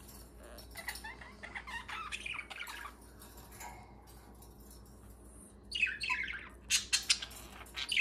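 A flock of pet budgerigars chirping and chattering softly. After a short lull, a few louder, sharper calls come near the end.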